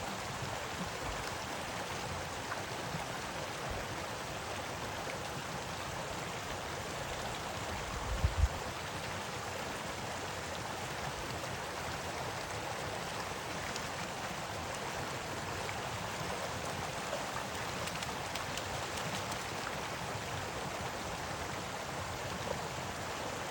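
Small creek's water running steadily. A brief low thump about a third of the way in.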